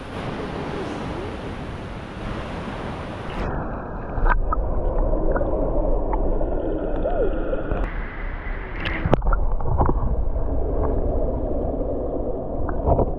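Rushing river water; about three and a half seconds in, the sound turns suddenly muffled as it is heard from underwater: a low gurgling rumble with scattered sharp clicks and taps.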